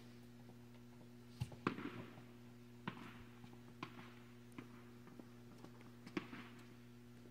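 Tennis balls knocking, from racket strikes and bounces, echoing under the dome of an indoor tennis bubble: a sharp pair about a second and a half in, then single knocks roughly every second. A steady low hum underlies them.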